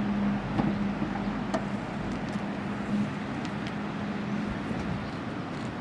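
Steady road traffic noise with a low hum that fades out near the end, and a few light clicks and knocks on top.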